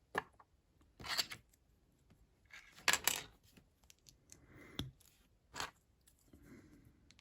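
Small plastic LEGO pieces being handled and fitted onto a minifigure: a handful of short clicks and brief rustles, the loudest about three seconds in.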